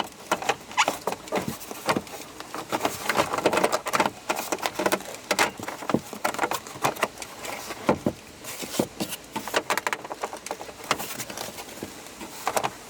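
Hard plastic dash cover being worked and pushed into the dashboard by hand: an irregular run of clicks, taps and rubbing scrapes as the parts knock and slide against each other.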